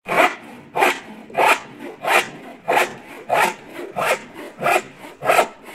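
A hand saw cutting wood in steady, even strokes, about three every two seconds.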